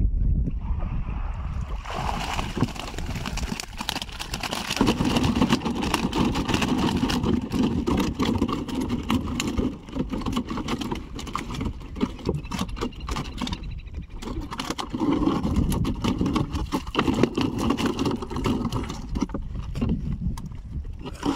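Pond water sloshing and splashing, with many small irregular splashes over a low rumble.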